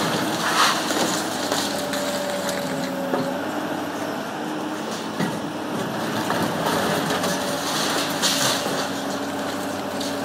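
Hydraulic demolition crusher on a Komatsu excavator biting into a concrete wall: concrete cracking and rubble crumbling, with louder cracks about half a second in and near the end. Under it, the excavator's engine and hydraulics run with a steady hum.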